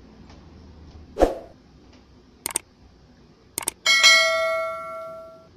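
A thump about a second in and a few light clicks, then a single bright metallic ring, like a small bell struck once, dying away over about a second and a half.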